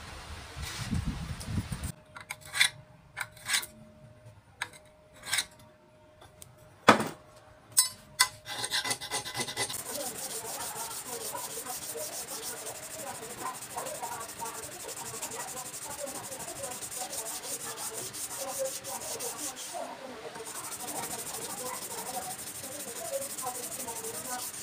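Hand-sanding a forged 80CrV2 high-carbon steel knife blade held in a vise: abrasive on a block is rubbed back and forth along the steel in quick, even rasping strokes through the latter half or more. Before that, a few sharp clicks and knocks, one of them loud, about seven seconds in.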